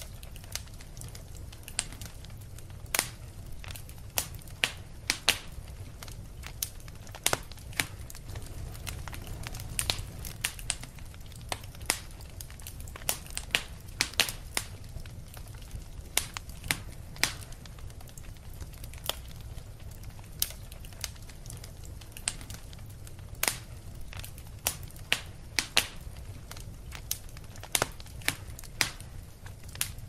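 Wood fire crackling in a fireplace: irregular sharp pops and snaps, several a second, over a low steady rumble.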